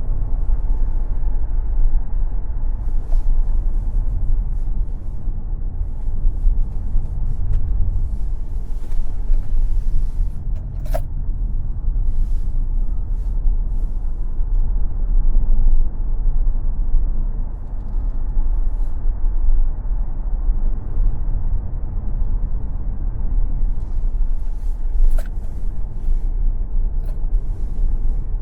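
Tesla Model X electric car being driven at speed: a steady low rumble of tyre and road noise with wind, and no engine note. There are two brief sharp clicks, about eleven seconds in and again near the end.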